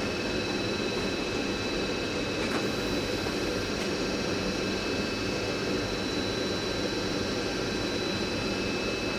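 Steady mechanical drone with a faint, thin high whine, unchanging throughout, with no distinct knocks or clicks.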